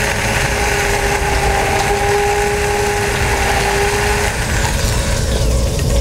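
Bosch immersion (stick) blender running steadily, puréeing raspberry sauce in a plastic beaker: a steady motor whine over a churning of the liquid. The whine drops away about four seconds in.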